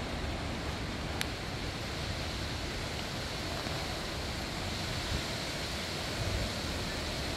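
Strong wind blowing through trees, a steady rushing noise, with gusts buffeting the microphone as a low uneven rumble.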